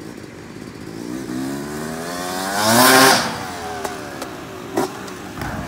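Freestyle motocross bike's engine revving hard as it accelerates, its pitch climbing to a loud peak about three seconds in and then falling away. A few sharp knocks follow near the end.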